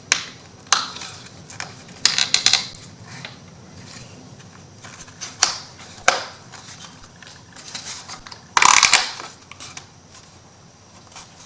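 Small MDF wood pieces being handled and pressed into place on a tabletop: scattered light knocks and clicks, a quick cluster about two seconds in, and a louder brief scrape or rustle near nine seconds.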